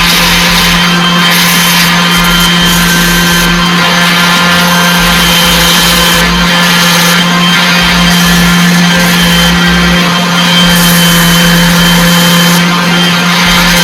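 Electric power tool running steadily with a constant hum, used on woodwork.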